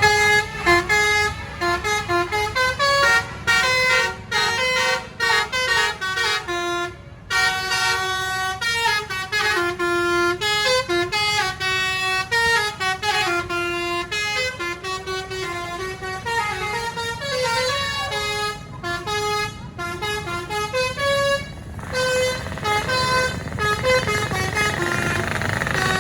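Bus 'telolet' musical air horn playing a fast tune of short stepping notes, with a brief break about seven seconds in.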